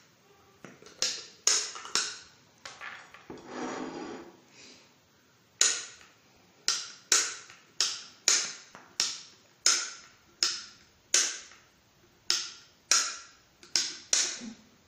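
Cookie-press gun's plunger mechanism clicking with each squeeze as it pipes pastry cream: a run of sharp clicks, about one to two a second, with a short softer rustling sound about four seconds in.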